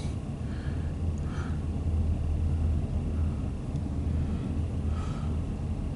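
Steady low vehicle rumble with no speech.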